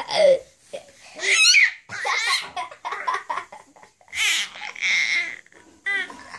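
Baby laughing and squealing in a string of short bursts, some high and wavering in pitch.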